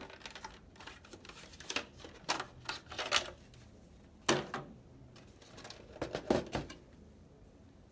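Scattered clicks and knocks of PS4 casing parts being handled as an internal panel is lifted off the console, with two louder knocks in the second half.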